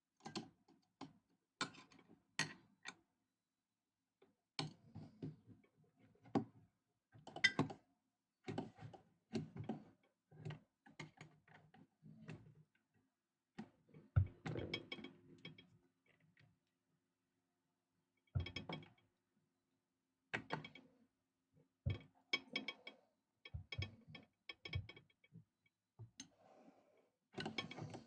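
Irregular metallic clicks, clacks and knocks as parts and tools are handled on a vintage PFAFF industrial shoe sewing machine being taken apart, some strikes ringing briefly.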